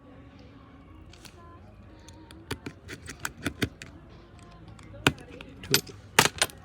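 Small sharp clicks and taps of a precision screwdriver and metal cover plate on an iPhone's internals while screws are fitted: a scattered run of light clicks about two and a half seconds in, then a few louder clicks near the end.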